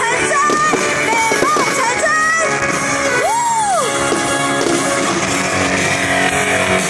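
Music with singing, crowd voices and shouts over it. About three seconds in, a single whistle-like tone rises and falls.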